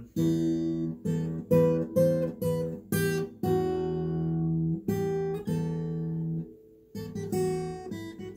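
Jasmine S35 steel-string acoustic guitar, fitted with Elixir medium strings, played as a run of chords struck one after another. Some chords are let ring for about a second. The playing stops briefly about six and a half seconds in, then a few more chords follow.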